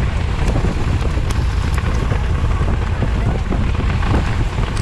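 Strong desert windstorm blasting the microphone: a steady low rumble of buffeting with a hiss of blown sand, and scattered sharp ticks.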